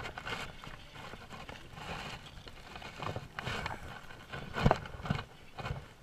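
Spinning rod and reel being handled and cranked close to the microphone: irregular knocks and rustling, with one louder knock late on.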